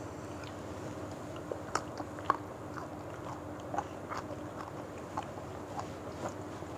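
Close-up eating sounds of people chewing and smacking on sweet-and-sour fried gourami and rice eaten by hand. Short, wet mouth clicks are scattered irregularly over a faint steady hum.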